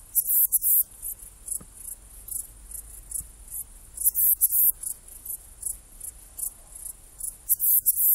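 Saddle-backed bush-cricket (Ephippiger ephippiger) stridulating: a run of short, very high-pitched chirps repeated several times a second. Louder clusters of chirps come near the start, about four seconds in, and near the end.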